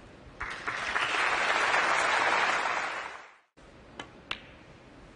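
Audience applauding for about three seconds, cutting off suddenly. About a second later come two sharp clicks of snooker balls: a cue tip striking the cue ball and the cue ball hitting a red.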